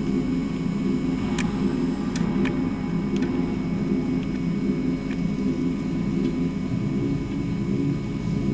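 A steady low rumbling drone with a few scattered sharp clicks in its first half, like old-film crackle.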